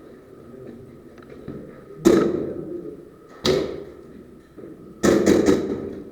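Airsoft gun firing close by: one sharp shot about two seconds in, another about a second and a half later, then three quick shots near the end, each trailing off briefly.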